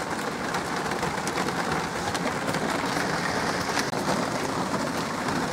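Heavy rain falling on a velomobile's shell and windscreen, heard from inside the cabin: a steady hiss scattered with the sharp ticks of single drops striking.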